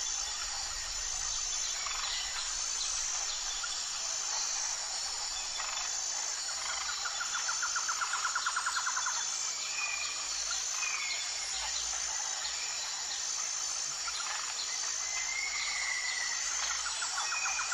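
Outdoor nature ambience: birds calling with short chirps, and a rapid trill about seven seconds in and again near the end, over a steady high-pitched insect chorus that pulses evenly.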